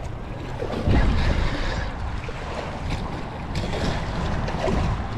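Wind buffeting the microphone over lapping water, with a louder gust about a second in.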